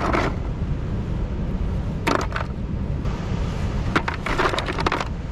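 Mussel shells clicking and clattering against each other as they are handled, in short bursts near the start, around two seconds in, and a longer run about four to five seconds in, over a steady low rumble.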